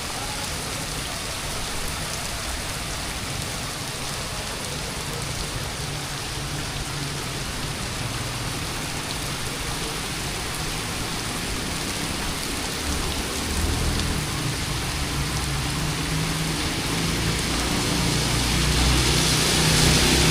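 Steady rain falling and hissing on hard surfaces. In the second half a low rumble comes in and grows louder toward the end.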